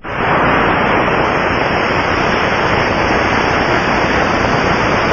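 Steady rushing hiss of a hydraulic check valve's ultrasound, picked up by an Ultraprobe 2000 contact probe and converted to audible sound in its headphones. It starts abruptly and is the kind of rushing used to detect fluid bypassing a check valve.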